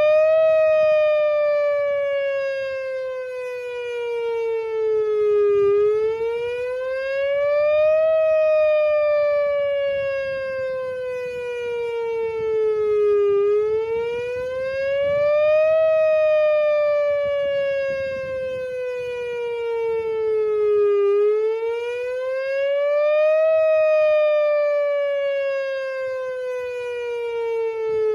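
Whelen WPS-2910 electronic outdoor warning siren sounding its wail tone, the wail part of a voice-wail test. The pitch rises quickly over about two seconds, then slides slowly down over about five, repeating roughly every eight seconds and loudest at each peak.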